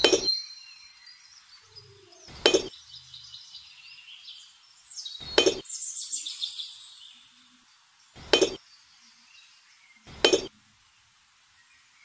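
Miniature clay bricks clinking against each other as they are handled, five sharp clicks a couple of seconds apart.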